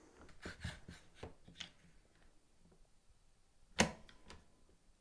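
One-handed trigger bar clamp being squeezed tight onto a metal guide rail on a wooden workbench: a quick run of soft clicks in the first couple of seconds, then one sharp knock just under four seconds in, the loudest sound.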